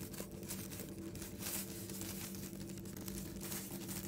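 Faint rustling of hands pressing a rice-vermicelli filling into fried tofu puffs, over a steady low hum.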